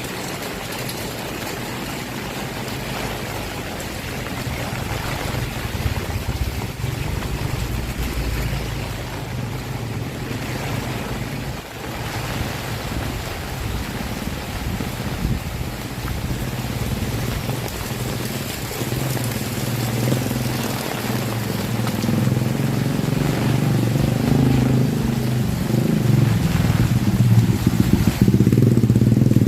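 Steady heavy rain hiss, with a motor vehicle's engine hum growing louder through the second half.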